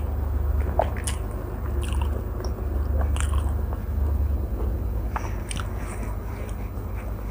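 Close-miked chewing of a mouthful of paratha with curry: irregular wet clicks and smacks of the mouth, with another bite taken near the end. A steady low hum runs underneath.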